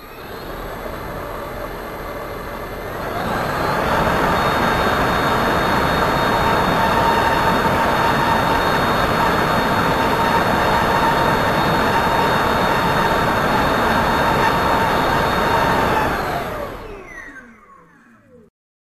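Hacker A60-16L electric motor spinning a 203 mm single-piece 3D-printed ABS fan at 35% power. It whines up and steps up to a louder steady rush with a steady whine about three seconds in. Near the end it winds down with a falling whine.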